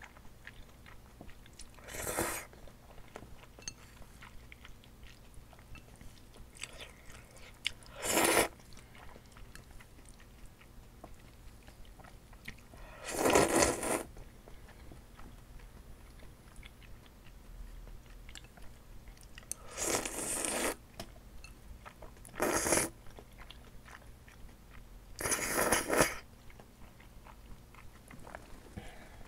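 Close-miked slurping of glass noodles in a thick spicy sauce: six loud slurps a few seconds apart, the one about halfway through the longest, with soft chewing and mouth clicks between them. A faint air-conditioner hum runs underneath.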